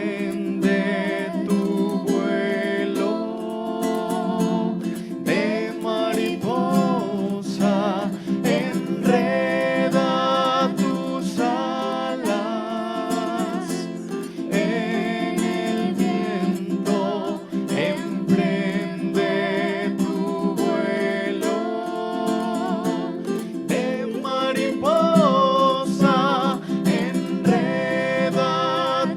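Music: strummed acoustic guitar under a melody with wavering vibrato, sung by a voice.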